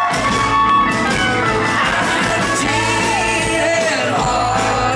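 A live country band playing the instrumental opening of a song, with guitar over a steady bass line.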